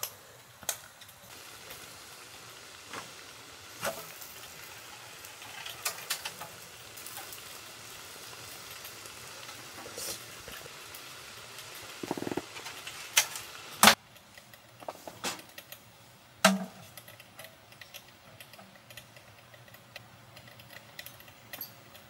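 Food sizzling on a hot grill, a steady hiss, with sharp clinks and taps of utensils. About fourteen seconds in the sizzle cuts off suddenly, leaving only a few scattered taps.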